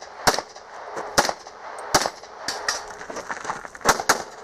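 Handgun firing a string of single shots in practical pistol shooting, spaced about half a second to a second apart, some loud and some fainter.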